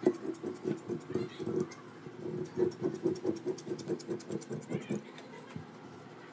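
Scissors cutting through cotton fabric on a table: a quick run of snips, about five a second, pausing briefly about two seconds in and again near the end.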